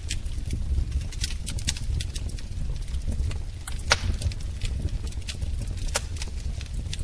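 Wood fire crackling in a fireplace: a steady low rumble of flames with irregular sharp pops and snaps, the loudest pop about four seconds in.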